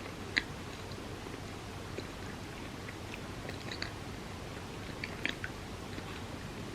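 Close-miked chewing of a bagel with cream cheese: short wet mouth clicks and smacks every second or so, the sharpest about half a second in and a small cluster around five seconds in.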